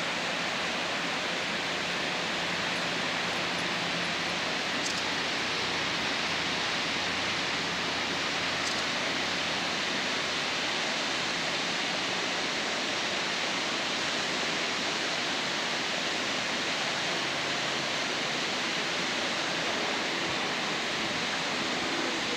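Steady, even rushing of the Niagara River's whitewater rapids.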